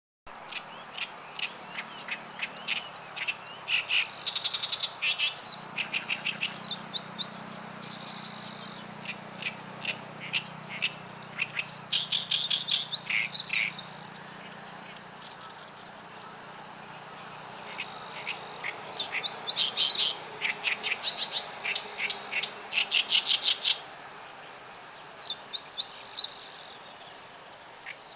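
Great reed warbler singing: bouts of rapidly repeated, chattering notes with short gaps between them, and a few higher slurred notes within the phrases.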